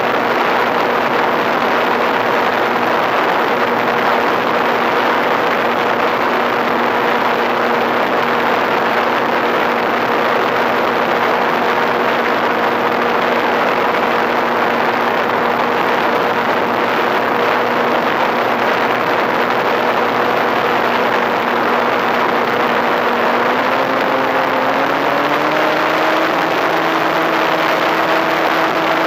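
Electric motor and propeller of an FPV Raptor model plane running steadily in flight: a steady hum over the rush of air past the onboard camera. The motor's pitch rises near the end and holds at the higher speed.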